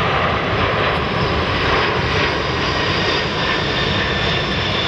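Boeing C-17 Globemaster III flying past low, its four turbofan engines making a loud, steady rush of jet noise with a faint high whine over it.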